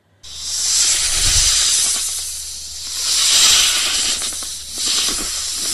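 A snake hissing sound effect: a loud hiss that starts about a quarter second in and swells and eases in several waves.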